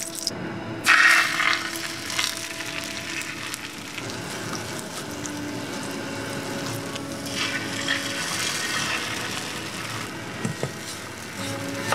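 Food sizzling in oil in a frying pan: the sizzle flares up loudly about a second in, then settles into a steady hiss.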